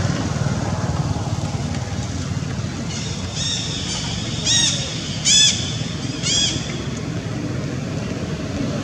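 Young long-tailed macaques squealing during rough play: four short, high-pitched squeals, each rising then falling in pitch, between about three and six and a half seconds in, the third the loudest. A steady low background rumble runs underneath.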